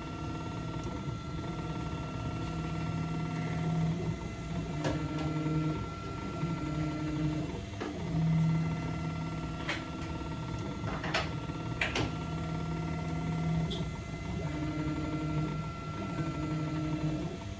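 Ultimaker 3 3D printer printing: its stepper motors whine in steady tones that switch pitch every second or two as the print head moves, over a steady hiss. Several sharp clicks come between about five and twelve seconds in.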